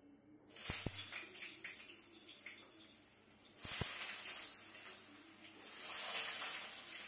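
Potato pieces dropped into hot oil in a kadai, sizzling in surges: starting about half a second in, again past the middle and near the end, with a few light knocks against the pan.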